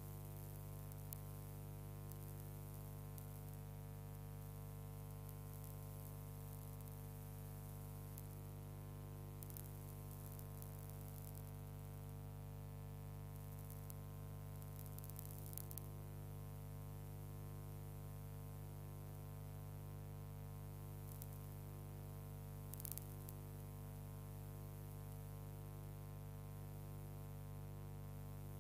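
Steady electrical hum with hiss, broken by a few faint crackles.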